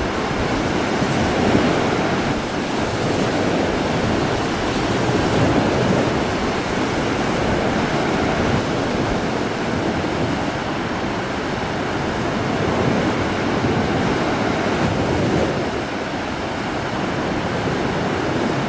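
Ocean surf breaking and washing up a sandy beach: a steady rushing that swells and eases with the waves, with wind buffeting the microphone.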